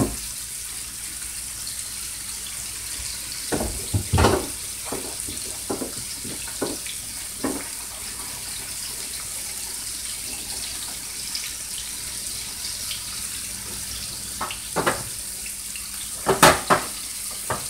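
Flour-dredged beef short ribs sizzling in a hot skillet as they brown, a steady high hiss. A few short knocks break in about four seconds in and near the end, the loudest near the end.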